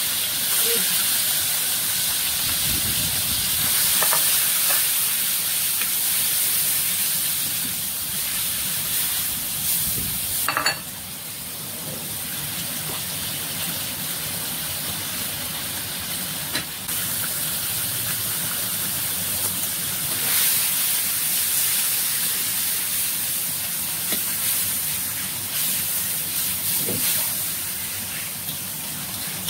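Sliced beef sizzling in hot oil in a carbon-steel wok, a steady hiss, with the occasional scrape of a spatula as it is stir-fried. The sizzle eases a little about ten seconds in.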